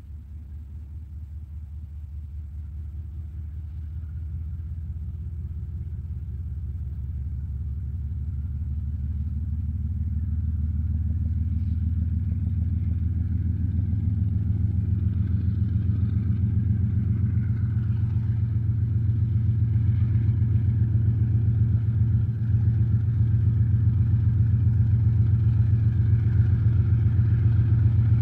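TE33AC diesel-electric locomotive's GE GEVO-12 V12 diesel engine working as it approaches: a low, rhythmic throb that grows steadily louder.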